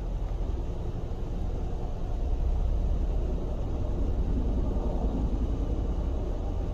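Boeing CH-47 Chinook tandem-rotor helicopters flying over: a steady low rotor and engine rumble that grows a little louder about two and a half seconds in.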